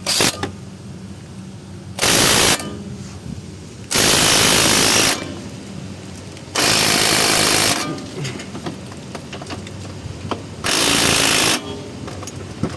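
Impact wrench hammering in four bursts of about half a second to a second each, driving the mounting bolts of a new wheel hub and bearing tight.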